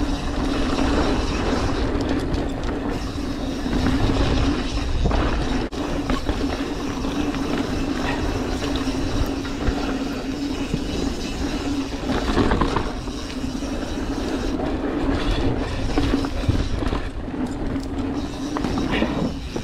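Mountain bike riding fast down a dirt trail: tyres rolling over dirt and leaves, with the frame and chain rattling and knocking over bumps, over a steady hum.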